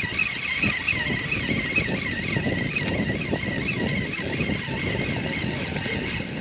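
A Runcl Titan II spinning reel cranked steadily to reel in a whiting, against wind buffeting the microphone. A high wavering whine runs until about four seconds in.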